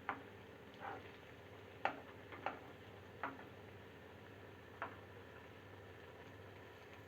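Chana dal vadas deep-frying in a pan of oil: a faint steady background with about six short, sharp pops or clicks spread over the first five seconds, then only the steady background.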